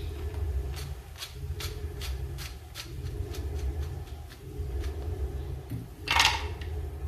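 Light clicks of a wire mesh skimmer against a frying pan as fried gram-flour phulkiyan are lifted from the oil, over a steady low hum; about six seconds in, a louder brief clatter as the skimmer is tipped onto a plate.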